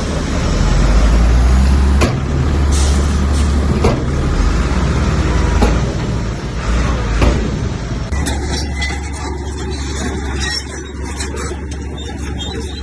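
Komatsu bulldozer's diesel engine running with a deep, steady rumble, broken by sharp metallic clanks roughly every second and a half to two seconds. About eight seconds in the sound changes to a lighter rumble with many small clicks and rattles.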